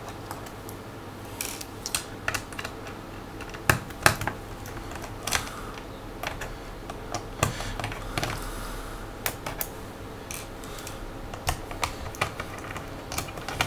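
Irregular small clicks and taps of a size 0 Phillips screwdriver working screws out of a laptop's bottom cover, with a few sharper knocks among them.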